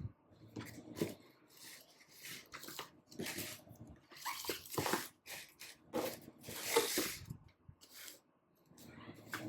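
Packaging and product containers being handled: irregular rustling with light clicks and taps, busiest in the middle.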